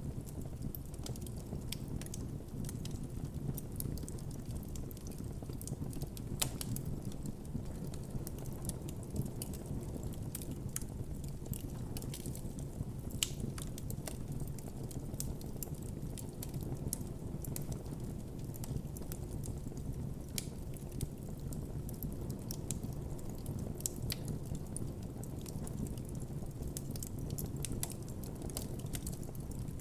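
Wood campfire crackling, with irregular sharp pops over a steady low rumble of the burning fire.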